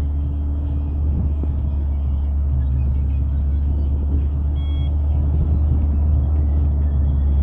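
Steady low engine and road rumble heard from inside a moving minibus.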